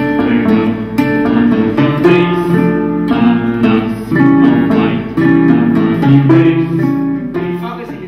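Music led by strummed guitar chords, the chords changing every half second or so.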